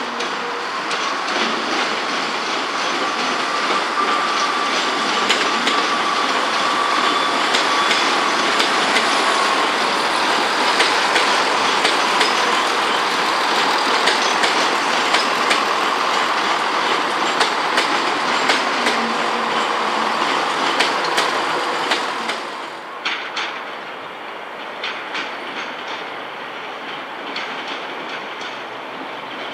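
Train passing along the track, its wheels clicking over rail joints with a faint wheel squeal. The sound drops away suddenly about three-quarters of the way through as the train clears, leaving fainter clicks.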